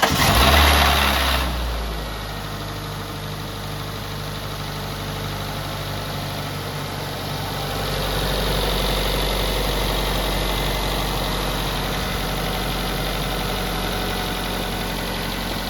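Nissan Serena engine on a test start after repair: it catches with a brief loud surge, then settles into a steady idle, growing slightly louder about eight seconds in.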